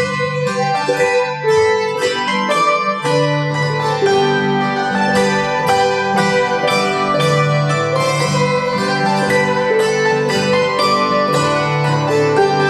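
Lever harp and hammered dulcimer playing a tune together: plucked harp notes with low bass notes underneath, and quick struck dulcimer notes that come thicker from about four seconds in.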